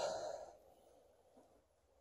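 A person's short breath out, like a sigh, lasting about half a second at the start, then near silence.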